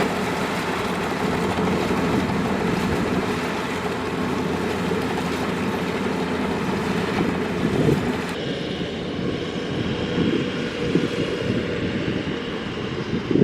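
Kubota DC-105X combine harvester running steadily, its diesel engine and threshing machinery giving a continuous mechanical drone. The sound turns duller about eight seconds in.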